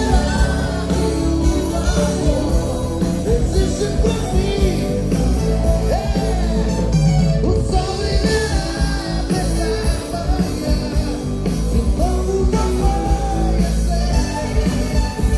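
Live gospel pop-rock band performing: a male lead singer over electric guitar and drums, with a steady beat.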